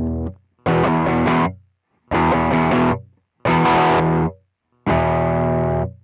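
Electric guitar played through an effects pedalboard: four short chords, each about a second long and each cut off sharply into silence before the next.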